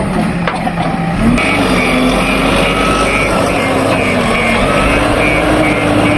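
Heavy diesel engine of construction machinery running and revving. From about a second in, a reversing alarm beeps about twice a second.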